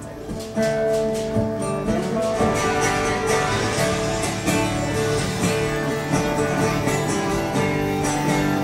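Music with guitar playing, swelling louder a little under a second in and carrying on steadily.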